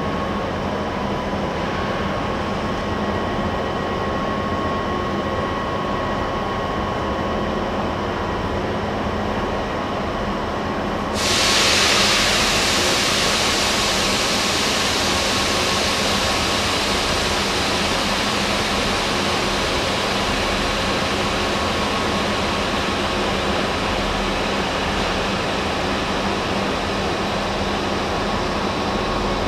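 Railway station ambience with the steady hum of standing and moving trains. About eleven seconds in, a loud hiss starts suddenly and carries on steadily.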